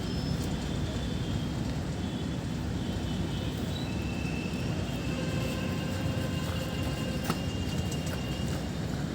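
Steady low outdoor rumble with no speech, with one sharp click about seven seconds in.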